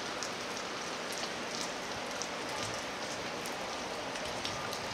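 Steady rain falling, with scattered individual drops ticking close by.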